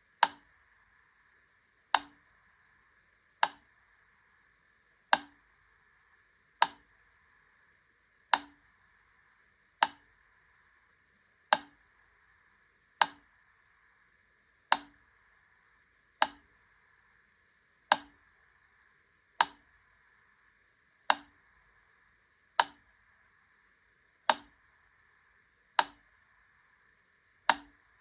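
Wittner Taktell Piccolo wind-up mechanical metronome ticking at a slow, even beat, one sharp tick about every second and a half, over a faint steady hiss.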